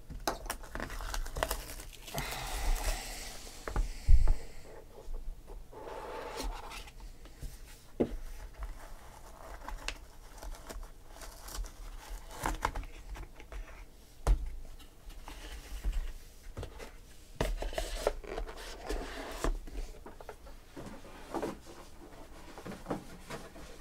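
Plastic shrink wrap crinkling and tearing as it is stripped off a sealed trading-card box. This is followed by scattered taps, knocks and clicks as the cardboard box is opened and the cards in hard plastic holders are handled and set down.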